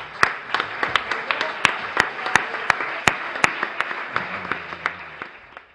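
Audience applauding, with a nearby clapper's louder claps standing out at about three a second. The applause dies away near the end.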